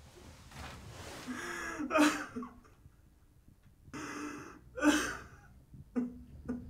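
A man sobbing: ragged, gasping breaths in and out broken by short choked cries, loudest about two seconds in and again about five seconds in.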